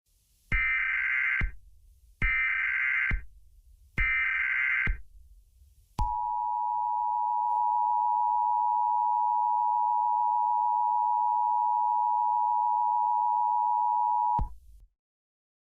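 Emergency Alert System alert opening: three short bursts of SAME header data tones, each just under a second, then the EAS two-tone attention signal, a steady two-pitch tone held for about eight seconds that stops abruptly.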